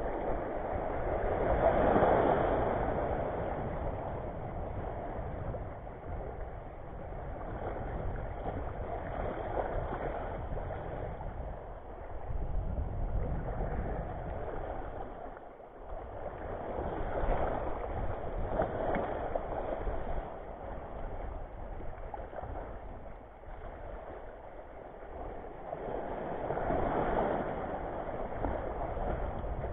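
Small waves washing over a shallow coral reef flat, swelling and fading every several seconds, with wind rumbling on the microphone.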